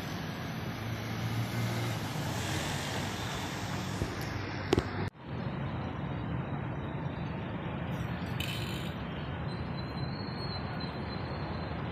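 Steady road traffic noise from passing vehicles, with a couple of sharp clicks just before it cuts out briefly about five seconds in, then resumes.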